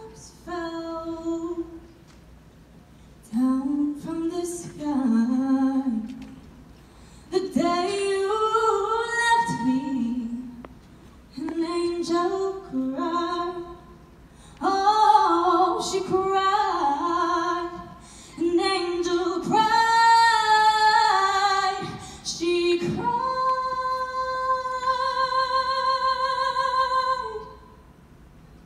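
A female solo voice singing a cappella in short phrases with brief pauses between them, closing near the end on a long held note with vibrato.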